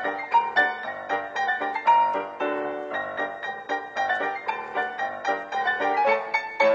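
Background piano music, a quick run of notes at about four a second.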